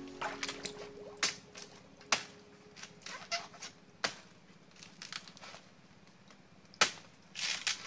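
Machete chopping at branches: four sharp, irregularly spaced strikes and several lighter knocks, with a short rustling burst near the end.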